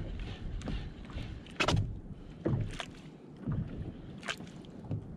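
Small waves slapping and splashing against the hull of a sit-on-top kayak, four irregular slaps over a low wind rumble on the microphone.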